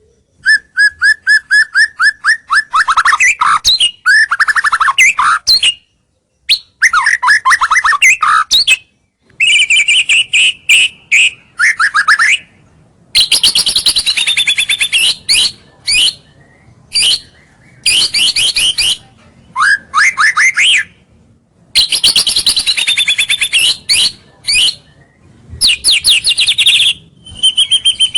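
White-rumped shama (murai batu) singing loud, varied phrases of fast repeated notes and whistles, broken by a few short pauses.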